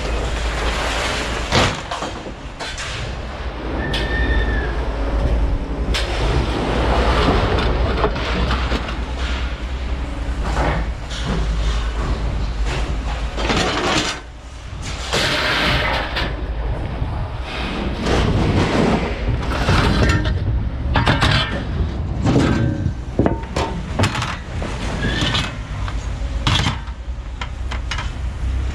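Non-ferrous scrap metal clanking and clattering as pieces are tossed and dropped into containers, in irregular knocks throughout, over wind rumbling on the microphone.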